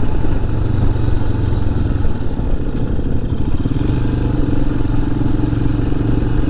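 Motorcycle engine running steadily at cruising speed, heard through a lav mic inside the rider's crash helmet.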